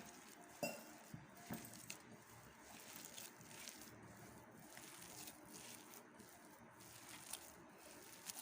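Faint, irregular clinks and soft clicks from a bowl as a crumbled bread, grated vegetable and cornflour mixture is mixed into a batter.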